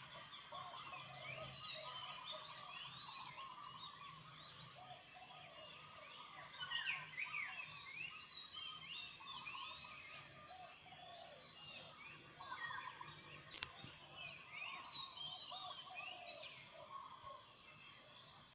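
Many birds calling at once, a busy mix of short chirps and quick rising and falling notes, over a faint steady hum and a thin high hiss.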